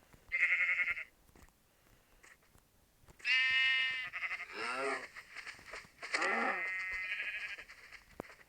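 A voice giving several high, bleat-like calls: a short one near the start, a longer wavering one about three seconds in, then calls that slide steeply down in pitch around five and six seconds in.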